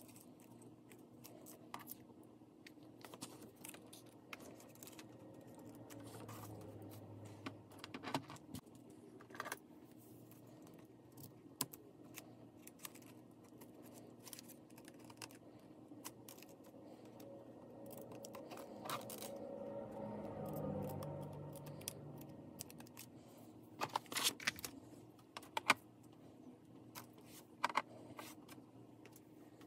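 Hands working with craft supplies on a tabletop (a hot glue gun, paper flowers and scissors), giving scattered small clicks, taps and snips, with a quick run of sharp clicks late on. A soft low hum swells and fades near the middle.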